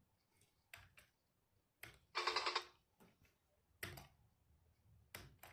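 Near silence broken by a few faint clicks and one short, soft sound about two seconds in.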